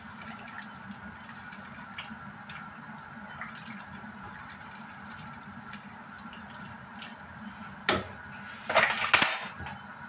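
A spatula stirring vegetables and broth in a pot, with faint knocks and liquid sounds over a steady hum. About eight seconds in comes a sharp knock, followed by a short burst of loud clinks and clatter of kitchen utensils.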